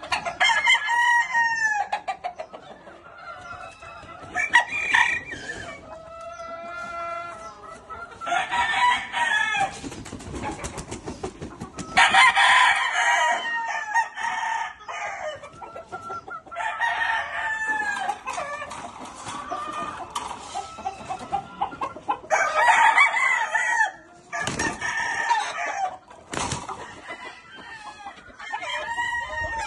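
Several gamecocks crowing, one long call after another every two to four seconds, some calls overlapping.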